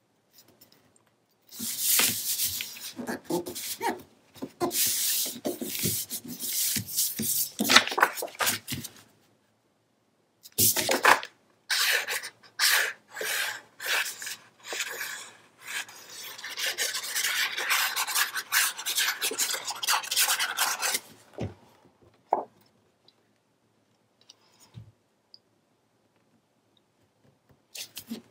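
Sheets of patterned scrapbook paper and cardstock being handled, slid and rubbed flat by hand on a cutting mat: two long stretches of paper rustling and rubbing, then a few light taps near the end.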